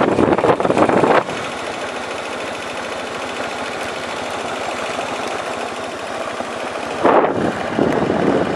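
Honda ATV engine running as the four-wheeler rides along a dirt road. A harsh crackling noise is loudest for about the first second and again near the end, with a steadier running sound in between.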